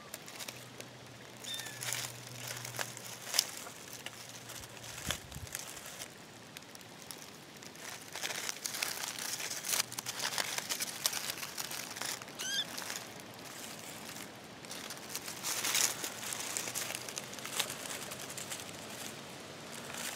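Dry leaves and debris rustling and crackling as they are disturbed, with scattered sharper crackles and clicks, busiest in the middle and again near the end.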